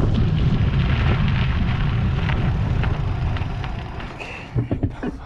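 Wind buffeting the microphone as a loud low rumble, dying down about four seconds in, then a few short, hard breaths from a cyclist winded after a steep climb.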